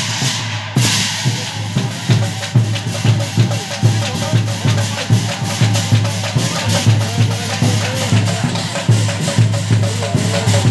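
Nagara naam music: nagara drums beating a steady rhythm with cymbals (taal) clashing on the beats and voices singing along.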